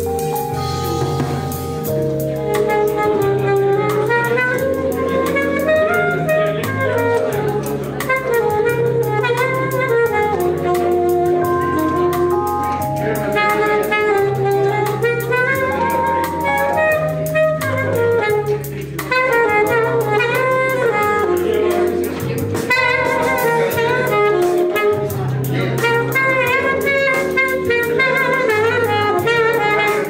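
Saxophone playing a jazzy melody in flowing phrases of held and moving notes, over an accompaniment with a stepping bass line and light drums.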